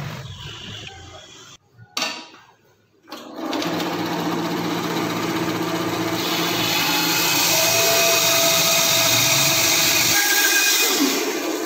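Pencil scratching on a wooden block at the start, then a benchtop bandsaw starts about three seconds in and runs steadily, its blade cutting a curved line through the wood. The cutting hiss grows louder from about six seconds in. The machine's low hum stops abruptly near ten seconds.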